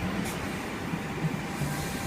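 Sydney Trains C-set double-deck electric train rolling into the platform, a steady rumble of wheels and running gear, with a faint high-pitched wheel or brake squeal starting near the end.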